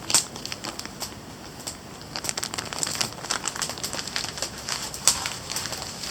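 Wood campfire crackling, with irregular sharp pops, a few louder ones.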